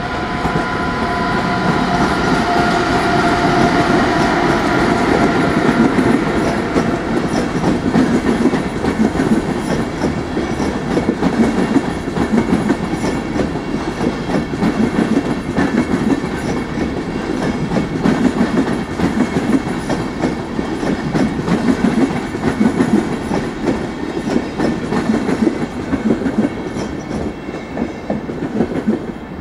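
Train moving along station tracks, its wheels clattering over rail joints and points throughout. A steady high-pitched whine sounds over the clatter for the first several seconds, then fades away.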